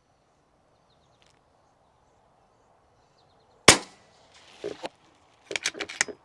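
A single shot from a moderated RAW HM1000X .25-calibre PCP air rifle: one sharp crack a little over halfway through. About two seconds later comes a quick run of metallic clicks as the side-lever action is worked.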